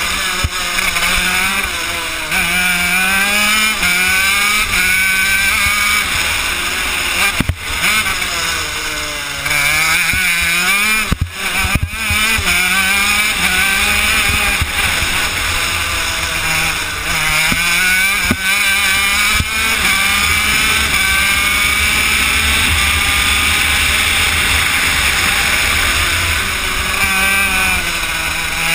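Honda CR80 two-stroke single-cylinder engine of a shifter kart, heard onboard at racing speed. Its pitch climbs and falls back again and again as the kart accelerates out of and slows into the corners.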